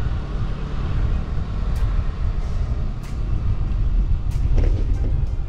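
Wind buffeting the microphone while cycling: a loud, uneven low rumble, with a few sharp clicks.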